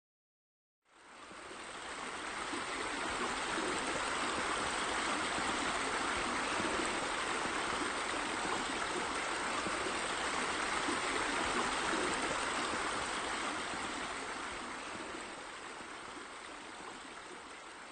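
Running water: a steady rush like a stream or waterfall, fading in about a second in and easing off near the end.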